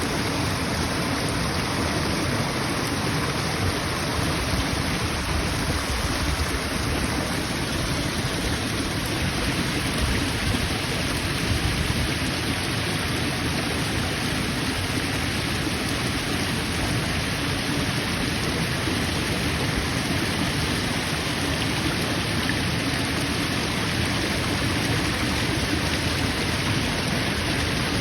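Waterfall: falling water rushing and splashing in a steady roar of noise.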